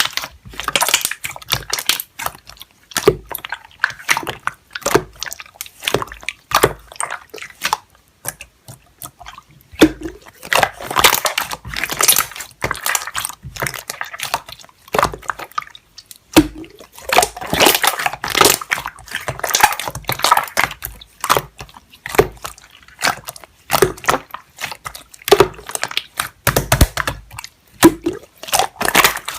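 Slime being squeezed and worked by hand: a fast, irregular run of wet, sticky clicks and squelches.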